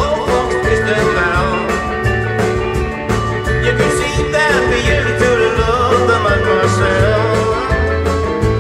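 Live rautalanka band playing: a gliding electric-guitar-style lead melody over a stepping bass line and steady drums.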